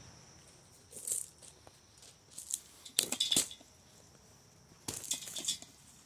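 Crunching and rustling in a few short bursts, from steps on gravel and movement through dry brush, over a steady high insect drone.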